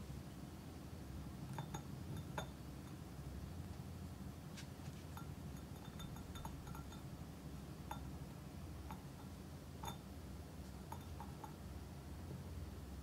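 Light clicks and clinks of a small wooden rod tapping a ceramic cat figurine and porcelain teacup as the rod is fitted into the figurine's paw. There are about fifteen scattered ticks, with a steady low hum underneath.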